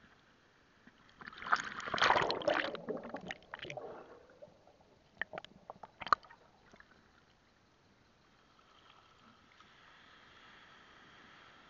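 Sea water splashing and sloshing over an action camera's housing as it goes under, loudest for a couple of seconds starting about a second in. A few sharp clicks follow while it is under water, then a faint steady hiss near the end.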